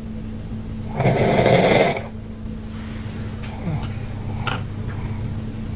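A person snoring: one loud snore about a second in, lasting about a second, over a faint steady hum.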